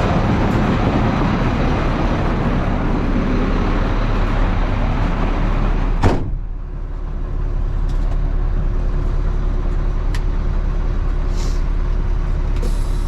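A farm vehicle's engine running steadily. About halfway through, a sharp thump like a door shutting cuts off most of the louder noise, leaving a muffled, steady low engine hum.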